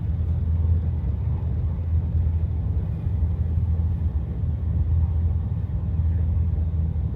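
Steady low rumble inside a train carriage while the train runs.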